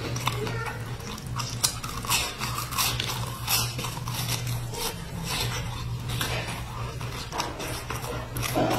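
Close-miked chewing and crunching of crisp round sandwich biscuits with a dark filling: a run of irregular crisp crackles, over a steady low hum.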